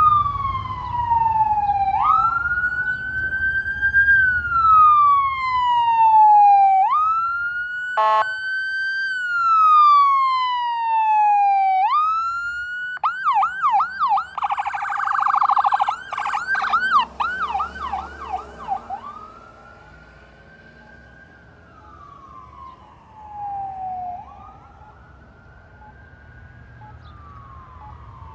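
Ambulance siren on a slow wail, rising and falling every few seconds. About halfway through it switches to a fast yelp for several seconds, then goes back to the wail and grows fainter as the ambulance drives away.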